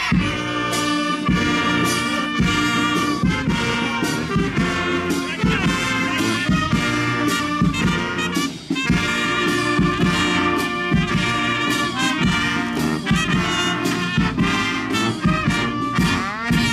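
Brass band playing a lively tune with trumpets and trombones over a steady beat, with a brief break about eight and a half seconds in.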